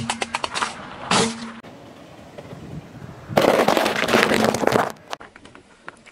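Car tyre rolling over and crushing brittle objects: bursts of crackling and crunching, the loudest a dense stretch of about a second and a half near the middle, with shorter snaps at the start and about a second in.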